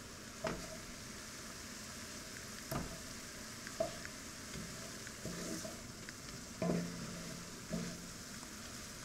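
A wooden spatula stirs and scrapes through butter, garlic and parsley in a skillet of simmering wine-and-lemon reduction over a steady low sizzle. Now and then the spatula knocks or scrapes against the pan, about five times.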